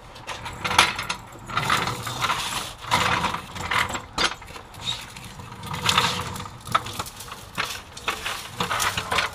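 Irregular metallic clanks, clicks and scrapes of hand tools and steel parts being worked at a car's front suspension.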